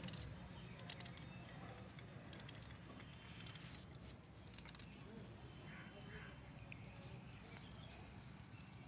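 Quiet, scattered clicks and snips of a small knife cutting a red onion held in the hand, over a faint steady low rumble.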